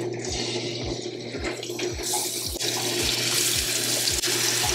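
Salmon fillets searing in hot vegetable oil in a frying pan: a steady sizzle that grows louder about two seconds in, over a steady low hum.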